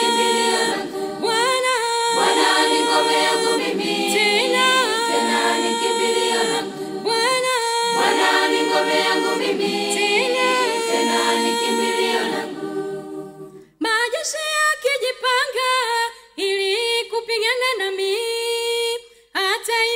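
Choir singing a Swahili gospel song a cappella, with many voices in harmony. About 14 seconds in, the full sound breaks off briefly, and the singing resumes thinner and more broken up.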